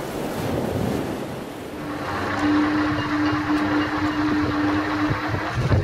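Wind buffeting the microphone in a stiff breeze, a steady rushing noise. A steady mechanical hum joins about two seconds in and stops about a second before the end.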